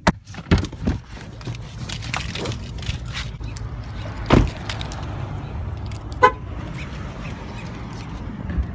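Car door being opened with a few clicks and knocks, then shut with a heavy thump about four seconds in; a short car-horn beep follows near the six-second mark, over steady outdoor traffic noise.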